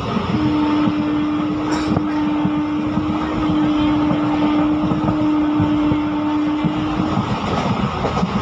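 Passenger train running at speed, with one long steady horn blast of about seven seconds over the running noise.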